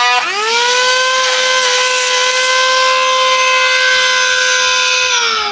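Electric cutting tool with a cutting blade, its motor spinning up to speed with a rising whine, running steadily at a high pitch, then winding down near the end.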